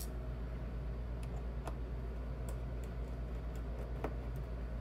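A few light, irregular clicks and ticks of a P5 pentalobe screwdriver and tiny laptop bottom-panel screws being handled, over a steady low hum.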